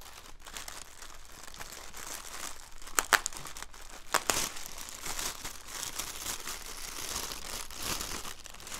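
Thin plastic bag crinkling and rustling as hands grip and pull it open, with a few sharper snaps about three and four seconds in.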